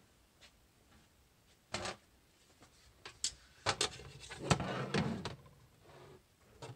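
A metal sheet pan holding a silicone soap mold being handled on a work table: a single knock about two seconds in, then clatter and scraping as the pan is slid into place, from about three to five seconds in.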